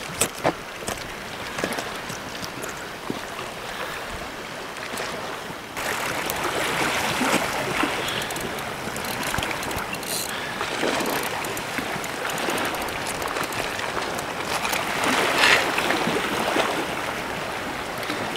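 Sea water washing against the shore: a steady rushing noise that gets abruptly louder about six seconds in, with a few sharp clicks near the start.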